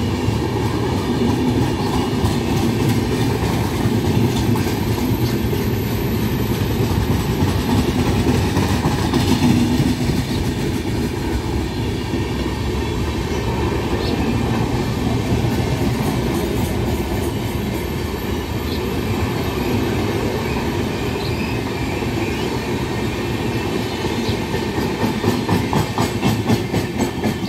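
Express train's LHB coaches rolling past at speed: a steady rumble of steel wheels on rail with a clickety-clack over the rail joints. The clacks get sharper near the end as the rear power car's bogies go by.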